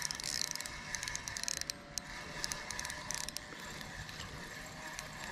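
Spinning reel being cranked to bring in a hooked crappie: the gears whir with rapid fine clicking, busiest in the first three seconds or so.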